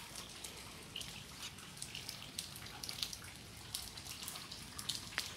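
Faint, irregular ticking of raindrops dripping onto wet grass and leaves as light rain tapers off.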